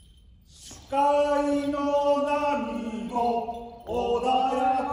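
A man's voice singing a taue odori (rice-planting dance) folk song, starting about a second in with long held notes that step down in pitch, then a short break and a rising scoop into the next held note.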